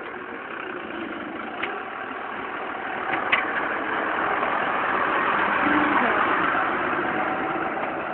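Engine of a snowplowing vehicle running, growing louder about halfway through and easing off near the end, with a couple of short clicks early on.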